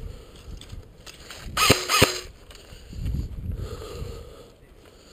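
Two sharp airsoft replica shots about a third of a second apart, over low rumbling noise from movement and wind on the microphone.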